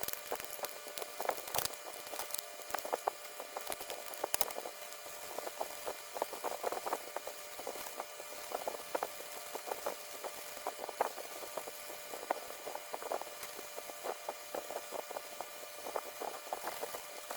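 Irregular light clicks and taps of tools working on a monitor chassis circuit board, over a faint steady hum.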